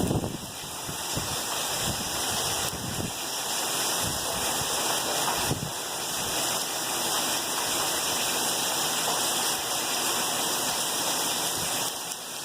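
Heavy hurricane rain pouring down in a steady rush, with a few gusts of wind buffeting the microphone near the start and about five seconds in.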